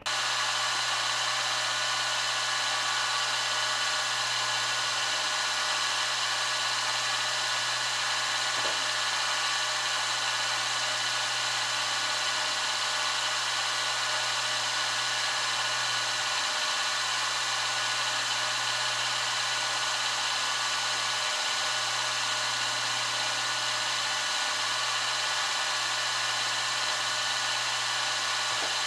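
Benchtop milling machine running steadily, its end mill cutting a slot into an aluminium flywheel blank, giving an even whine with several held tones.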